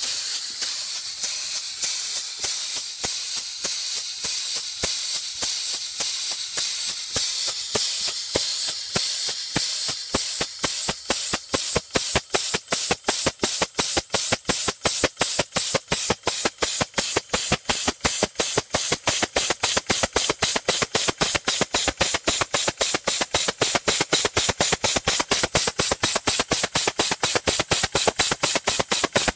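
A 1918 Brunner air compressor converted into a compressed-air engine, running with a hiss of air and a regular chuff at each exhaust stroke. The chuffs gradually quicken as the engine speeds up. From about ten seconds in, the hiss drops back and each chuff stands out sharply.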